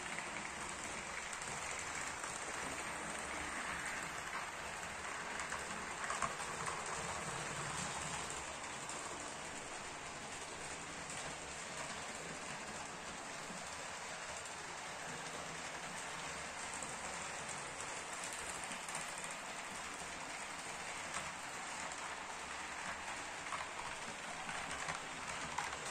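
A steady rushing hiss with a few faint clicks.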